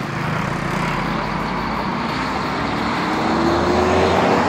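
Street traffic: a motor vehicle's engine rising slowly in pitch and growing louder as it speeds up and passes, over a steady traffic hum.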